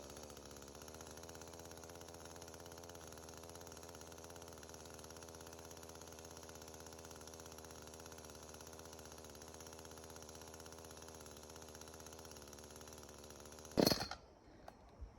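Echo CS-310 chainsaw's small two-stroke engine idling steadily just after a pull start, then stalling on its own near the end with a loud knock as it cuts out.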